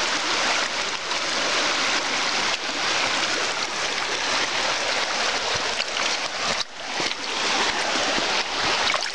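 Shallow riffle of a small rocky stream rushing over and around stones, a steady splashing hiss. The sound dips briefly about two-thirds of the way through.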